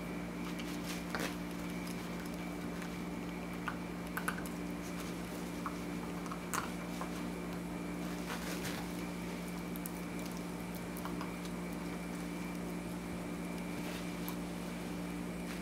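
A dog handling its toys: scattered faint taps, clicks and soft chewing sounds, over a steady hum.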